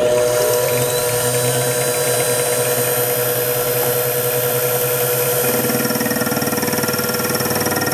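Mini mill running with a fly cutter spinning, a steady motor whine. About five and a half seconds in, a fast rhythmic chatter joins as the fly cutter starts its facing cut across the aluminium block.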